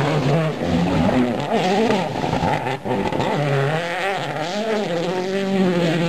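World Rally Car turbocharged four-cylinder engines, a Citroën C4 WRC first, running at full throttle past the listener. The pitch climbs and drops again and again with the gear changes, and the sound breaks off for an instant about three seconds in.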